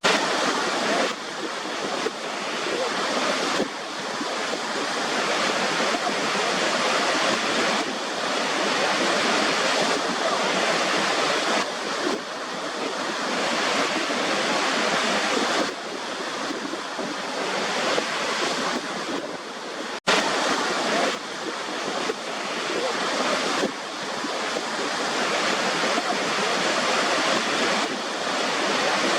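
White-noise track: a steady rushing hiss, like surf, that shifts abruptly in loudness every few seconds, with a momentary dropout about twenty seconds in.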